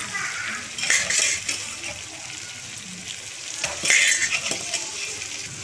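Steel slotted ladle stirring and scraping chunks of goat liver through masala in an aluminium kadai, the mix sizzling as it fries. Louder scrapes come about a second in and again about four seconds in.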